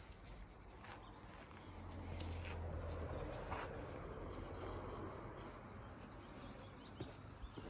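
Faint outdoor ambience: a low rumble that swells and fades over about two seconds, with a few faint bird chirps scattered through it.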